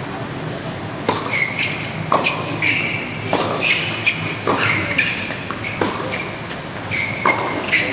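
Tennis rally on a hard court: sharp racket-on-ball strikes and bounces about once a second, starting about a second in, with sneakers squeaking on the court surface between shots and echoing in a large hall.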